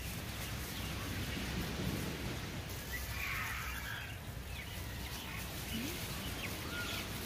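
Steady low outdoor rumble with faint, scattered high chirps like distant birds.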